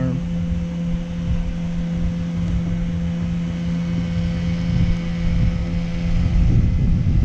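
Wind buffeting the microphone in a rough, gusting low rumble, over a steady low hum.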